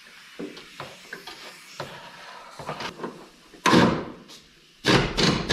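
Light clicks and knocks of parts being handled, then two loud scraping noises about three and a half and five seconds in, the second the longer and louder, as car light fittings are worked loose.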